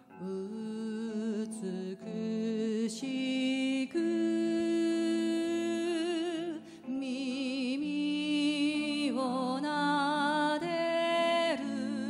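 A woman sings a slow song in phrases of long held notes that waver with vibrato, with a sanshin and guitar accompanying her.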